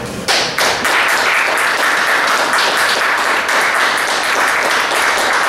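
Audience applauding: a dense, steady patter of many hands clapping that starts suddenly just after a poem's final line.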